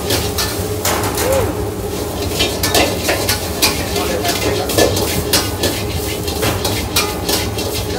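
A metal utensil scraping and knocking against a wok in quick, irregular strokes as rice and egg are stir-fried in hot lard, with a sizzle under a steady low rumble from the range.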